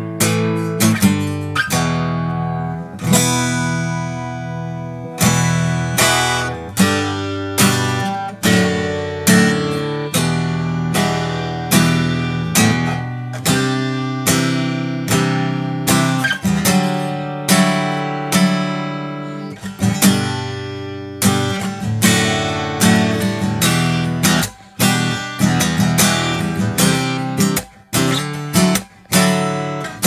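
Acoustic guitar fitted with a composite nut and saddle, strummed in a steady chord progression with each chord ringing. The strumming stops briefly a few times near the end.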